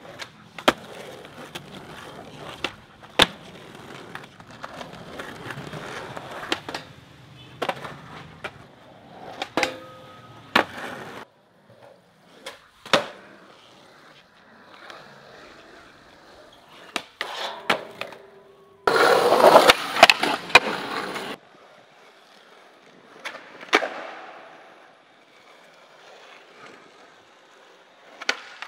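Skateboard rolling on pavement and smooth floors, broken by sharp clacks of the tail popping and the board landing during flatground tricks. A louder, rougher stretch of noise lasts about two seconds past the middle.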